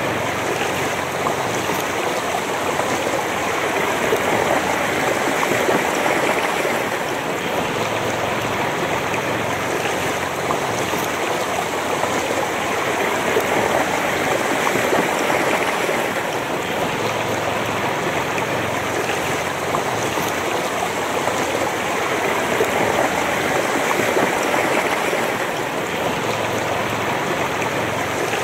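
Shallow, fast river rushing and splashing over rocks and stones, a steady flow of water with slow, gentle swells in loudness.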